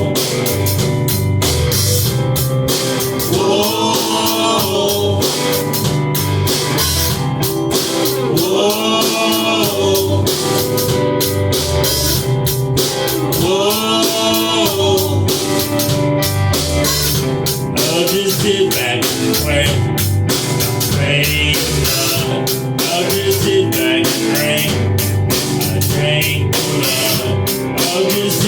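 Rock band playing an instrumental passage: drum kit keeping a steady beat under electric guitar and bass, with a wailing lead line that bends in pitch.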